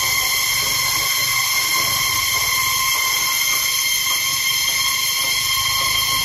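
A chorus of cicadas: a loud, steady, high-pitched drone that holds several pitches at once without a break.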